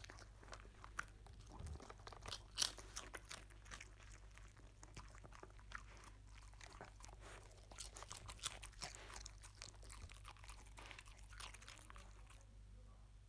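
A dog crunching and chewing puffed rice, many quick, irregular crisp crunches that thin out near the end.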